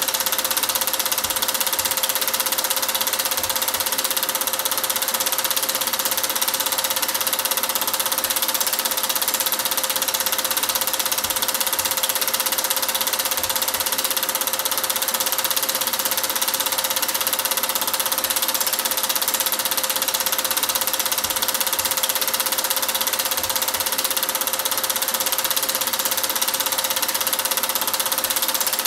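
Cine film projector running: a steady mechanical whirr with a constant hum and hiss that does not change.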